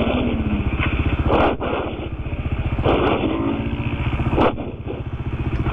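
A 520-badged quad bike's engine running steadily at low revs, its firing an even throb, with short bursts of rushing noise about every second and a half.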